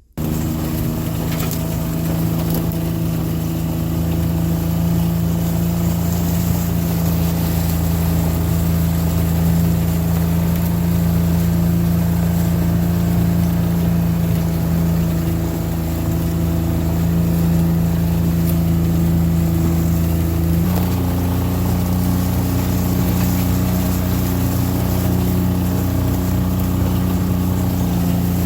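An engine running at a steady speed, its pitch changing once about 21 seconds in.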